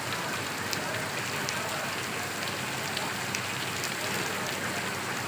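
Steady rain falling, a continuous hiss with scattered individual drops ticking on a surface.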